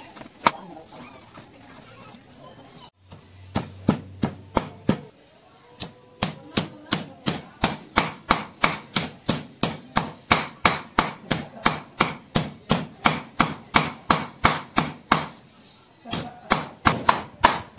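Cleaver chopping raw frog meat and fat on a round wooden chopping board. A few scattered chops come first, then a steady run of about three chops a second, a short pause, and a quicker run near the end.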